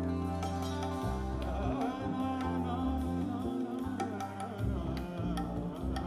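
A live Indian fusion rock band playing, with bass, electric guitars and drums under a wavering melody line.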